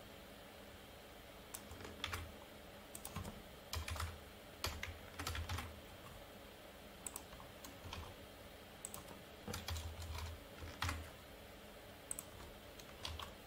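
Typing on a computer keyboard in scattered short runs of keystrokes, with pauses between them.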